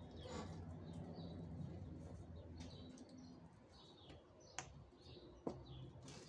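Faint birds chirping over a steady low hum that fades out about halfway through. Two sharp clicks near the end as a small plastic container is handled.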